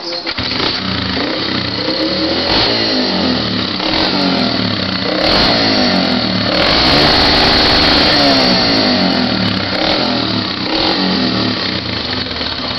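Engine running and revved repeatedly, its pitch rising and falling several times. It is held high for about two seconds past the middle before dropping back.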